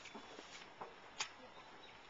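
Faint footsteps of a squad marching on concrete: a few sharp heel clicks over a quiet outdoor background, the loudest a little past a second in.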